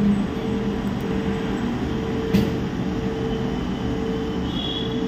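Steady machine-like hum and noise, with a single sharp click about two and a half seconds in.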